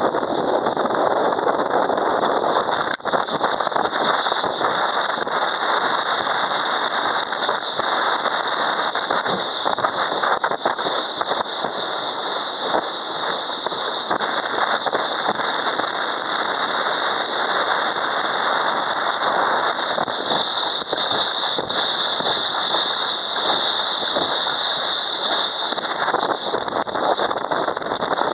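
Small boat underway at speed on choppy water: a steady rush of wind and water spray, with the outboard motor running under it.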